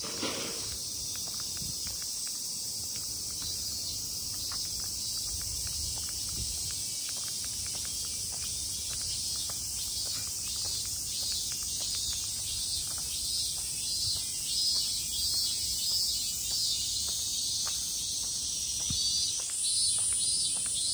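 A chorus of summer cicadas singing in a steady high drone that pulses from about halfway through, with another cicada joining on a higher note near the end. Soft footsteps tick faintly underneath.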